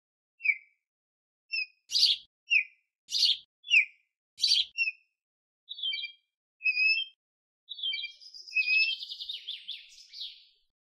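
Killdeer calling: short, sharp, high notes, some falling in pitch, coming about one or two a second, then a rapid fluttering trill near the end.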